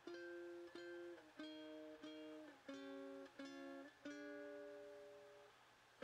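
Quiet background music: a plucked string instrument playing a slow melody of single notes, about seven in all, each struck and then fading, the last one ringing out longest.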